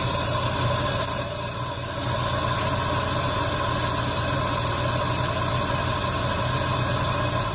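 Nissan Maxima engine running loud and steady with a strong hiss, freshly restarted after repair work, believed to be firing on only five spark plugs. It starts to shut down at the very end.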